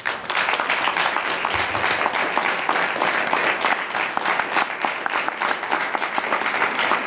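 Audience applauding: dense, steady clapping that breaks out suddenly and keeps an even level.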